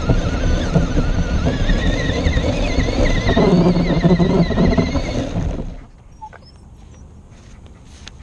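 Small electric RC car, a Traxxas LaTrax SST, driving over grass, heard from a camera on the car: rushing tyre and chassis noise with a motor whine that wavers in pitch. The noise stops suddenly about five and a half seconds in as the car comes to rest.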